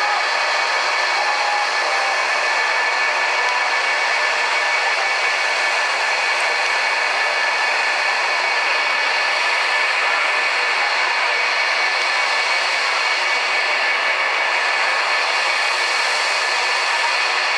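RF-4E Phantom II's twin J79 turbojets idling: a steady jet whine with several high tones over a hiss, holding even throughout.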